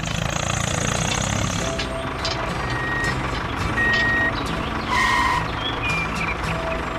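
Heavy-vehicle engine sound effect running steadily, with a few short electronic beeps like a reversing alarm laid over it.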